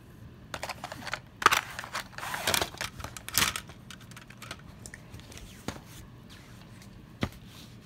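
Handling noise of plastic toys being moved and shuffled: a run of rustling, scraping clatter in the first few seconds, then scattered light clicks and one sharp click near the end.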